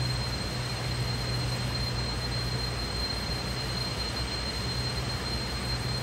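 Stream flowing close by: a steady rushing wash with a low rumble under it and a thin, steady high tone above it.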